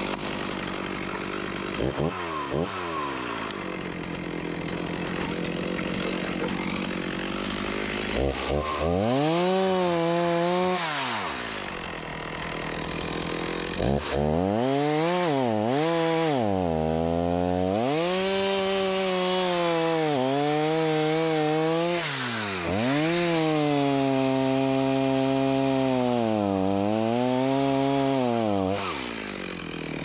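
Chainsaw running at high revs, its engine note rising and sagging again and again as it is worked through wood, then easing off near the end.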